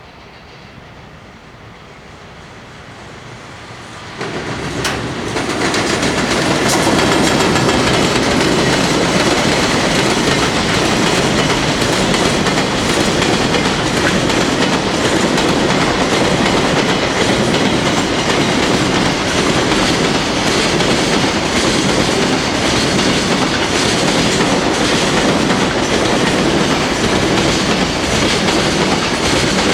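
A freight train passing at speed: the EF210 electric locomotive closes in and goes by about four seconds in with a sudden jump in level, then a long string of freight wagons rolls past with steady wheel clatter on the rail joints.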